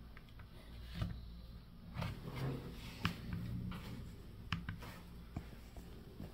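A few faint clicks and light knocks from a wall thermostat being fitted and its buttons pressed, over a low steady hum.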